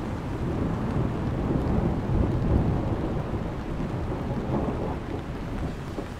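Thunder rumbling over steady rain, swelling to its loudest about two seconds in and then slowly fading.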